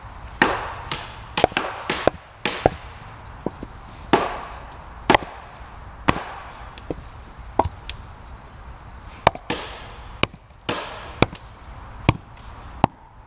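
Axe chopping into split cedar planks: a run of sharp, irregular chops, about one to two a second, some much louder than others, trimming off knots so the planks sit flat together.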